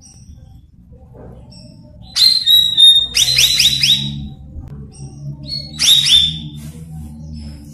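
Cucak rawis (bayeman) leafbird song: bursts of quick, clear whistled notes, the loudest about two, three and six seconds in, with fainter scattered notes between, over a steady low hum.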